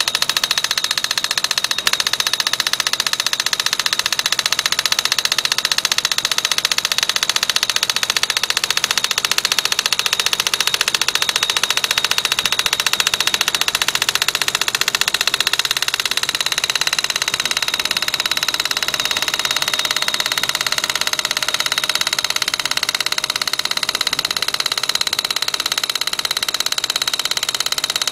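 Hengwang HWED30 pneumatic sampling drill rig running, its air-driven drill head hammering in rapid, even strokes that make a continuous loud rattle. The tone shifts slightly about halfway through.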